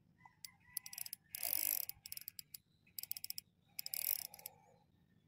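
Spinning fishing reel ratcheting in several short bursts of rapid clicks, as line runs under the load of a bent rod.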